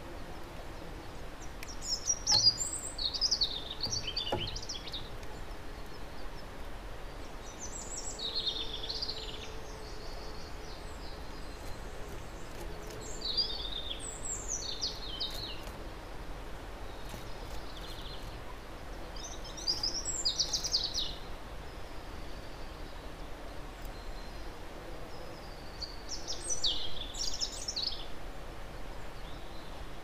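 Wild songbird singing: a short, quick, high phrase repeated about five times, every five to six seconds, over steady outdoor background noise.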